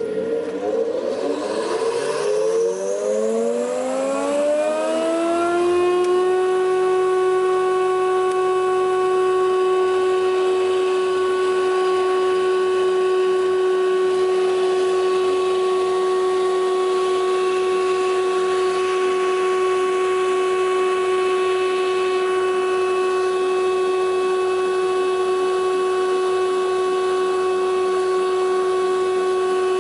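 Guilliet LKL thickness planer switched on: the motor and cutterhead whine rises in pitch for about six seconds as they spin up, then holds a steady whine at full speed, running with no board fed through.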